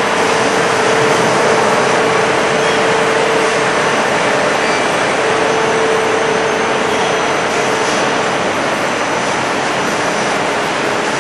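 Steady noise of cathode-ray tube production machinery and air handling on a factory floor, with a mid-pitched hum that fades in and out.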